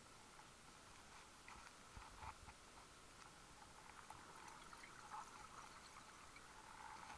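Near silence: faint, muffled underwater noise as heard through a camera housing, with scattered small clicks and soft gurgles.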